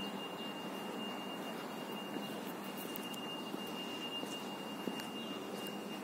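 A steady high-pitched tone held without a break, over a low background hiss with a few faint clicks.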